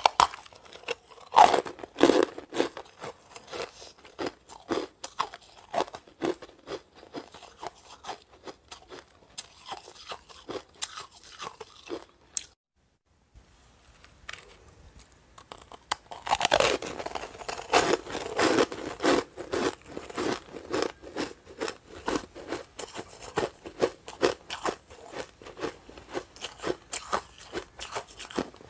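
Shaved ice balls being bitten and chewed: dense, crisp crunching, with a loud bite about a second in. It breaks off briefly about halfway through, then a second loud bite starts another run of crunching.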